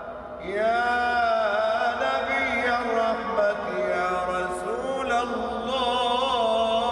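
A man's solo voice chanting in long, ornamented phrases with wavering held notes, a new phrase starting about half a second in.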